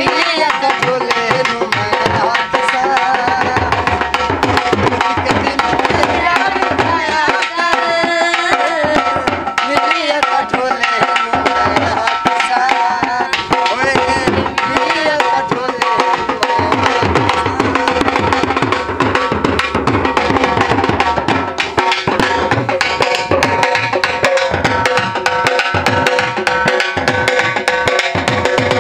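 Dhol drum beaten with sticks in a fast, steady rhythm, with a wavering melody line over it, as accompaniment for a folk dance.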